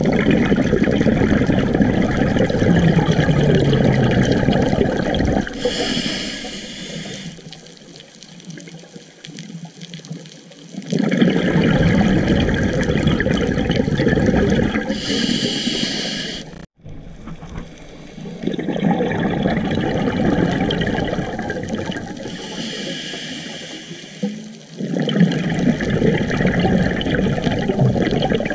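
Scuba diver breathing through a regulator: several long rushes of exhaled bubbles, each a few seconds, alternating with a short hiss of inhaling through the regulator.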